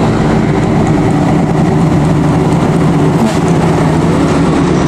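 Close road traffic: the diesel engines of trucks and a bus running steadily as they approach, with tyre and road noise.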